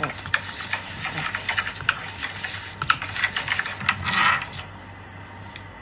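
Wire whisk beating thin kutsinta batter of flour, tapioca, sugar and water in a plastic bowl, with quick rattling clicks of the wires against the bowl. A louder swish comes about four seconds in, then the whisking stops.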